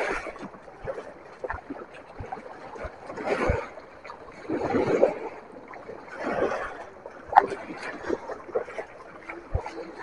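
Water washing and splashing in uneven surges, with a sharp click about seven seconds in.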